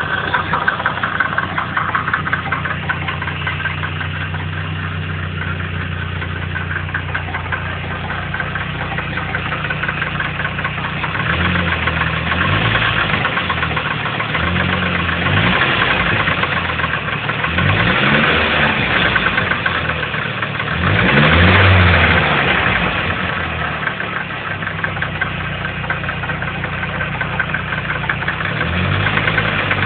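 Nissan CA18DET turbocharged four-cylinder engine idling, with several short revs from about ten seconds in, pitch rising and falling back each time; the loudest rev comes about three-quarters of the way through. The owner asks whether a noise it makes is engine knock.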